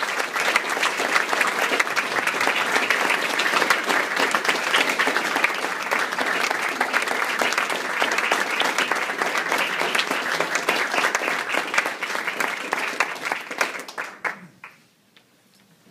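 Audience applauding steadily, then dying away quickly near the end.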